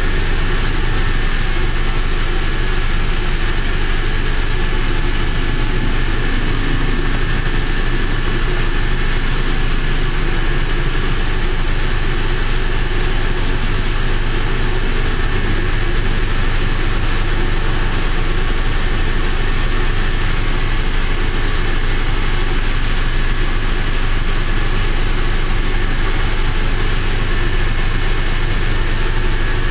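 A vehicle engine idling steadily at close range, with a heavy low rumble and a faint constant high tone above it.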